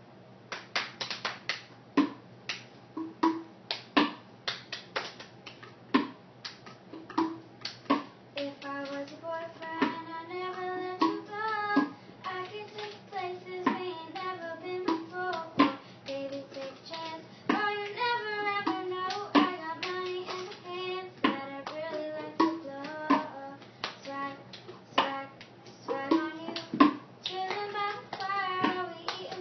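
A young girl singing over her own cup rhythm: a steady pattern of hand claps and a cup tapped and knocked on the floor. For about the first eight seconds only the claps and cup knocks are heard, then the singing joins in over them.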